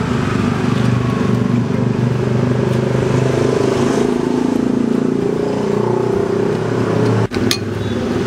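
Road traffic: a motor vehicle engine running steadily, with a brief break about seven seconds in.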